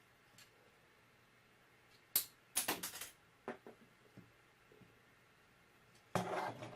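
Hard plastic LEGO parts clicking and tapping as they are handled and fitted together on a buildable figure. There is a sharp click about two seconds in, a quick cluster of clicks just before three seconds, and a few lighter taps after that. Near the end comes a short stretch of rustling handling noise.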